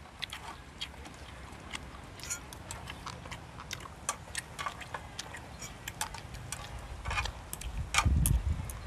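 Close-miked eating sounds: scattered soft clicks and smacks of chewing and of chopsticks on food and the grill plate, with low thumps near the end.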